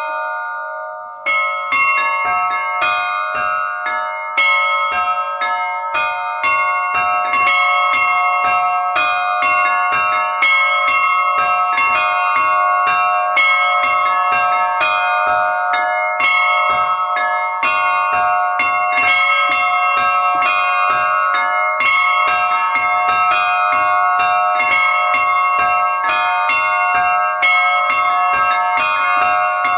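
Russian-style bell ringing (kolokolny zvon) in a three-beat waltz meter: a set of bells struck in quick, evenly spaced strokes, each note ringing on under the next. There is a short lull about a second in, then the ringing carries on steadily.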